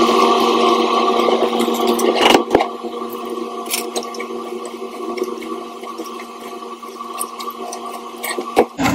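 Steady hum of an air conditioner running, a few soft knocks about two and a half seconds in.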